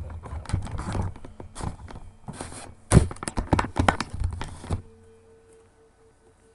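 Close-up handling noise: a Nike Foamposite sneaker and hands rubbing and knocking against the webcam, in a quick run of clicks and thumps, the loudest about three seconds in. It stops suddenly about five seconds in.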